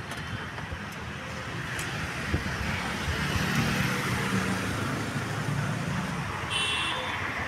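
Road traffic passing on the street: engines running and a steady rush of traffic noise, with one engine's low hum growing louder in the middle. A short high-pitched tone comes near the end.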